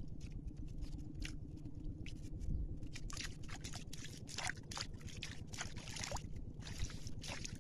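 Water sloshing and dripping as a net fish trap is lifted and worked in shallow canal water: many short, irregular splashes, denser from about three seconds in, over a steady low rumble.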